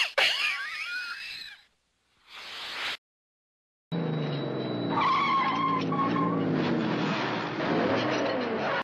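A string of separate vintage Disney cartoon sound effects: a short sound with sliding, falling pitches, a brief noise that swells up, then about two seconds later a long, busy stretch of many shifting pitched sounds over a noisy bed with a thin steady high tone.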